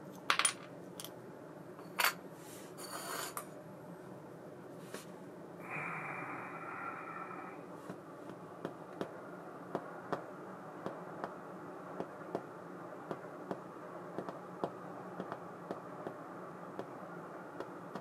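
Small metal baitcasting-reel parts being handled and set down on a wooden workbench: a few sharp clinks and a scrape near the start, a brief metallic rattle-and-ring about six seconds in, then light ticks every half second or so.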